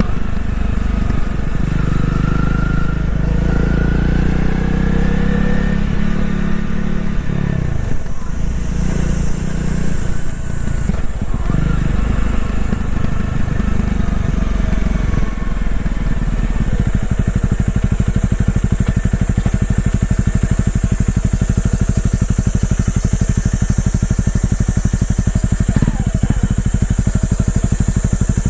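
Honda CRF250L's single-cylinder engine accelerating with a rising pitch for the first several seconds, then easing off. From a little past halfway it settles into a steady, evenly pulsing idle.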